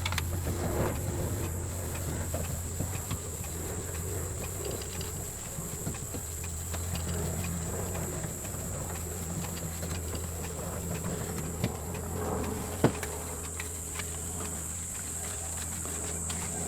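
Cloth rag rubbing fine-cut polishing compound in circles on a plastic safety-glasses lens, a faint scratchy rubbing over a steady low hum and a steady high whine. Two short sharp clicks come about twelve and thirteen seconds in.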